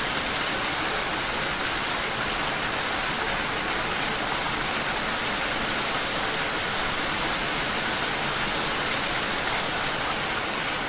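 Rain falling steadily, an even hiss with no pauses.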